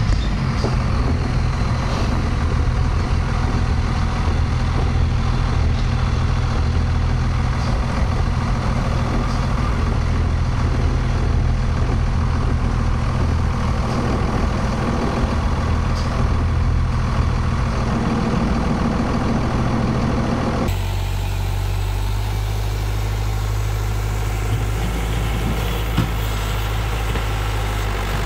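Dodge pickup's 24-valve Cummins turbo diesel running as the truck slowly pulls a dump trailer. About three-quarters of the way through it cuts abruptly to the steady running of a Massey Ferguson 50E backhoe's diesel engine.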